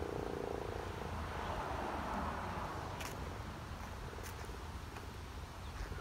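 American Signal T-128 outdoor warning siren winding down at the end of its test, its tone fading out about a second in. After that only a low, steady background rumble remains.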